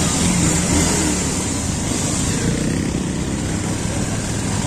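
Motorcycle engine running steadily under way, with wind and road noise on the microphone.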